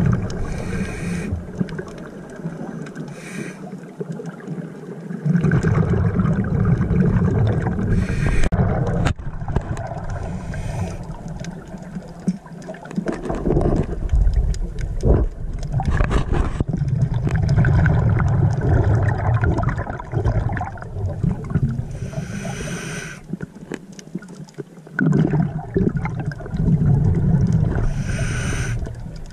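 Scuba breathing heard underwater: long bubbling rumbles of exhaled air every few seconds, with short hisses from the regulator in between.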